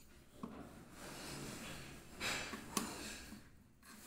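Breathing close to the microphone, swelling and fading, while hands handle a plastic fuse cut-out. A sharp click comes about two-thirds of the way in as the fuse carrier is worked.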